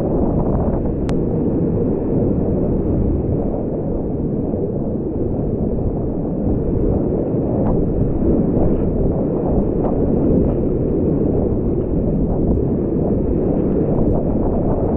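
Loud, steady rushing roar of whitewater rapids around a kayak, dull and muffled with little treble, with a few small splashes from the paddle.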